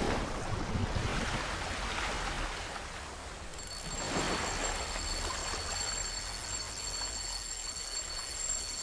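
Water splashing and churning, with a fresh splash about four seconds in; a steady high ringing tone joins it from there.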